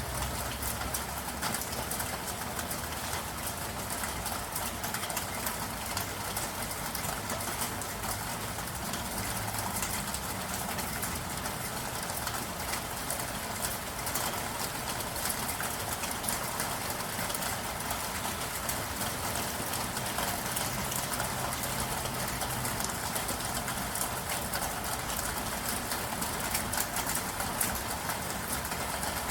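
Steady rain falling: an even hiss with a dense patter of drops, over a low hum that comes and goes.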